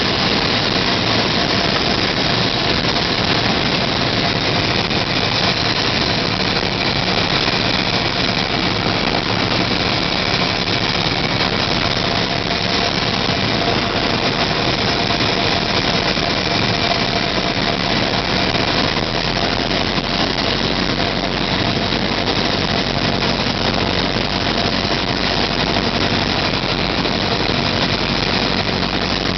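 Cessna 172 engine and propeller running at a steady drone on a landing approach, heard inside the cabin together with wind noise.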